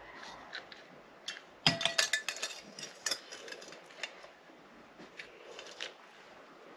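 Small hard objects clinking and clattering as they are handled, with a burst of knocks and ringing clinks about two seconds in, then a few scattered clicks.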